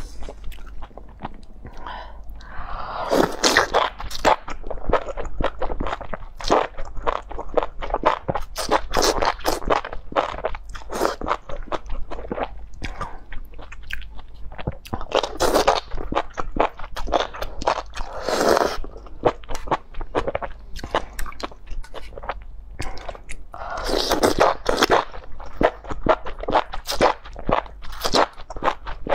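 Close-miked eating of enoki mushrooms in spicy chili-oil broth: steady crisp, crackling crunches and wet chewing, broken a few times by longer, louder slurps of the mushroom strands.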